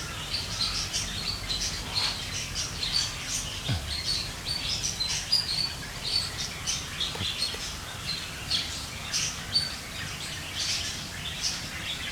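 Small birds chirping in quick, repeated short high notes, with a steady low background noise.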